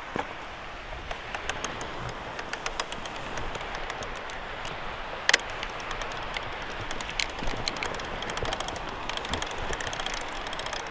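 Drop-bar bicycle ridden over sand and dry seaweed: steady tyre and wind noise with frequent small clicks and rattles from the bike, heard through a camera mounted on the frame.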